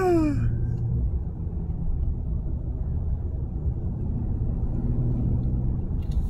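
Steady low rumble of a Ram 2500 pickup on the move, heard from inside its cab: engine and road noise. A short falling vocal sound trails off at the very start.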